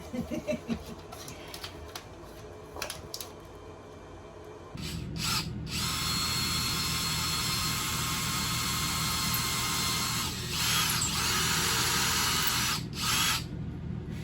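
Scattered light clicks and handling noise, then a power drill runs in long steady spells with a whining pitch, stopping briefly twice near the end.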